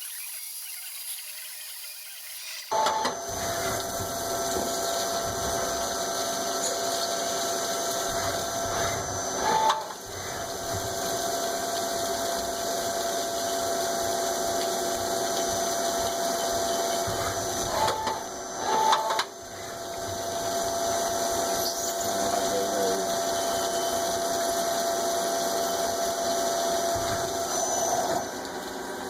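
A small electric machine tool starts about three seconds in and runs steadily with a constant whine. It breaks off briefly a few times, at about 10, 18 and 28 seconds.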